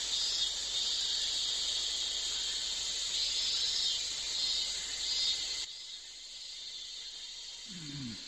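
Chorus of cicadas, a steady high buzzing hiss that swells and eases, which drops away sharply about two-thirds of the way through and carries on much fainter. Near the end a short low vocal sound falls in pitch.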